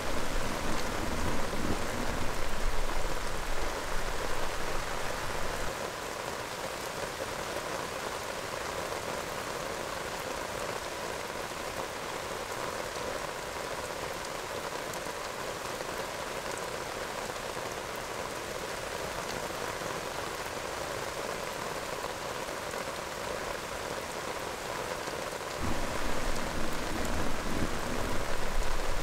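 Heavy rain falling steadily and pattering on a tent's fabric. It eases a few seconds in and comes back heavier after a sudden step near the end.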